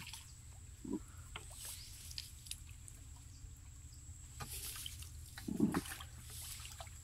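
Hand paddle of a small wooden canal boat dipping and pulling through the water, with scattered splashes and drips and two dull thuds, about a second in and again near the end.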